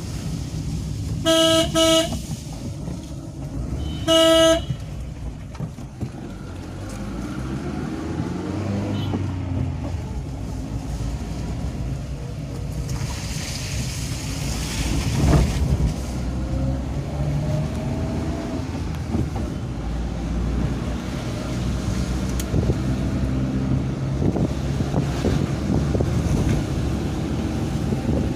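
Vehicle horn honking: a quick double toot about a second in and a single short toot about four seconds in. After that, the steady engine and road noise of a moving van, heard from inside the cabin.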